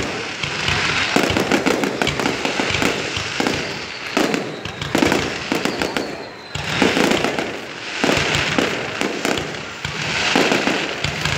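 Fireworks display: aerial shells bursting in a dense, continuous run of bangs and crackles, swelling and easing every few seconds.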